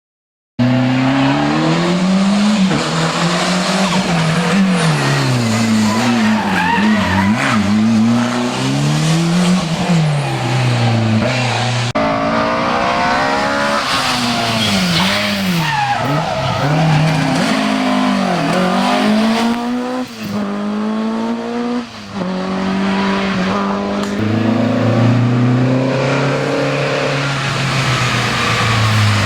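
Historic rally car engine at full throttle on a stage, revving up and dropping again and again through gear changes and corners. It starts about half a second in, and the sound changes abruptly about twelve seconds in.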